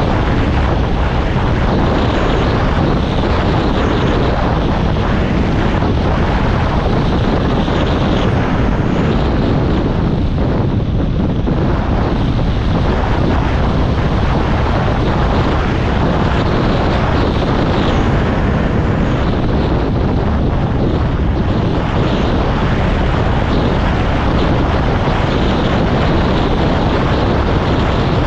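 Loud, steady rushing noise with no clear pitch or separate hits, like wind buffeting the microphone.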